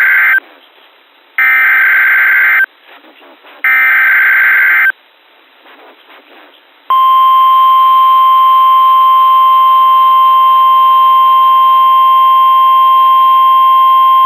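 Emergency Alert System SAME header over NOAA Weather Radio: three loud bursts of warbling digital data tones, each a little over a second long and the first already under way, with short gaps between them. After a pause of about two seconds, the steady 1050 Hz weather radio warning alarm tone comes on and holds.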